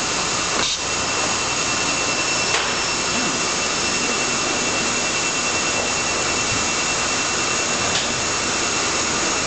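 Steady machine noise from injection moulding machines and their take-out robot, a constant hiss-like noise with a thin high whine through it and a few faint clicks.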